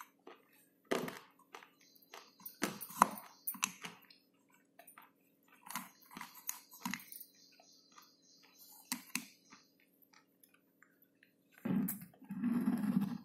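Slate pencil being bitten and chewed: dry, irregular crunches and sharp clicks with short pauses between them, and a longer, louder bout of crunching near the end.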